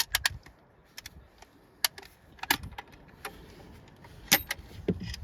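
Sharp metallic clicks and clacks, about a dozen at uneven intervals, from an 1873 Springfield trapdoor rifle being handled between shots as its breech is worked.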